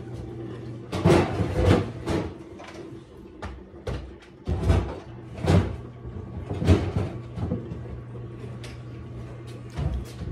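Kitchen clatter: a string of sharp knocks and bangs as things are moved, set down and shut during cleaning, some eight or nine hits spread through the stretch, over a steady low hum.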